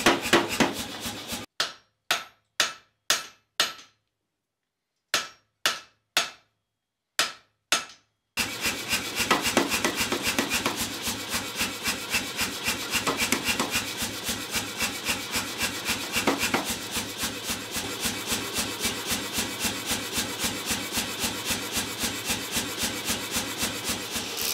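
Power hammer striking a red-hot steel bar to forge it square. First comes a quick flurry, then a few single blows with pauses between, then from about eight seconds in a long run of rapid, even blows, several a second.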